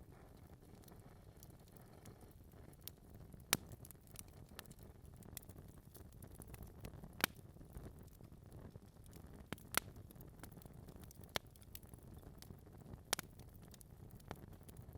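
Wood fire burning in a fireplace: a low, steady rumble of flames with light crackling, broken by a handful of sharp pops from the logs every couple of seconds.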